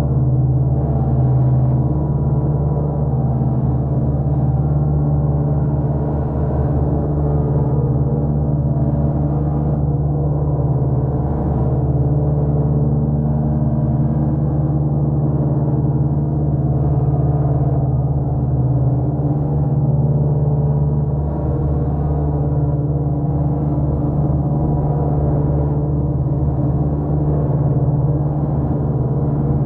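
Eurorack modular synthesizer drone, built from a TipTop Audio Z3000mk2 oscillator fed through a Doepfer A-188-1 bucket-brigade delay and modulated by a Make Noise Wogglebug and Maths. It is a steady, gong-like low tone thick with overtones, its upper part flickering slightly.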